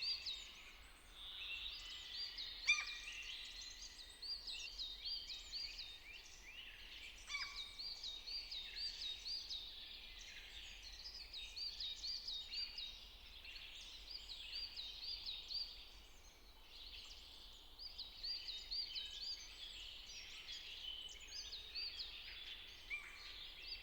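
Birds singing faintly: quick runs of short, high chirping notes repeated over and over, with short pauses between runs. A couple of faint knocks come through, one a few seconds in and another about seven seconds in.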